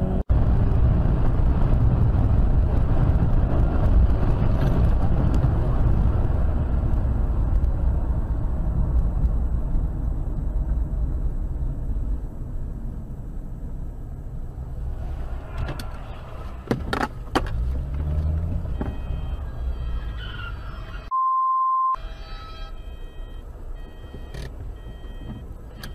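Steady road and engine rumble inside a moving car, picked up by a dashcam, heaviest in the first half. A few sharp knocks come in the second half, and about 21 seconds in a short single-tone bleep replaces all other sound.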